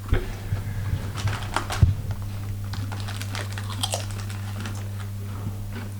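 Crinkling and rustling of a potato crisp packet being handled, with a dense run of small crackles in the first two seconds, then scattered ones.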